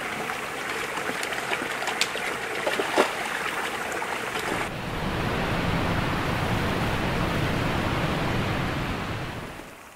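Water rushing over rocks in a boulder-strewn stream, with a couple of sharp clicks in the first few seconds. About five seconds in it changes to a louder, deeper rush of a small waterfall cascading between boulders, fading away near the end.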